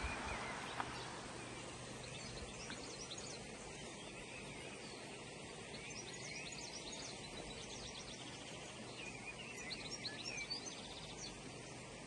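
Steady rush of a shallow rocky stream, with small birds chirping and singing over it in short bursts, busiest near the end.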